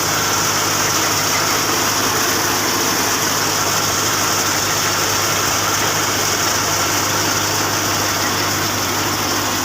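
Tractor-driven wheat thresher running steadily, with the tractor's engine turning it through a shaft. It makes a constant, even mechanical drone with a low hum and a high hiss as wheat is threshed through it.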